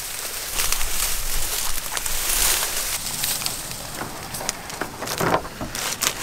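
Dry marsh grass and reeds rustling and crackling as someone pushes through them, with irregular snaps of stems and a louder brush about five seconds in.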